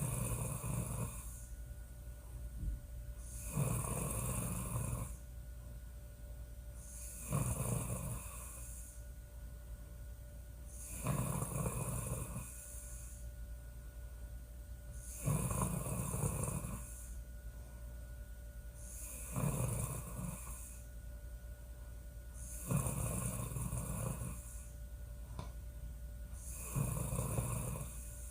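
A woman snoring loudly in a slow, regular rhythm, one snore about every four seconds, eight in all.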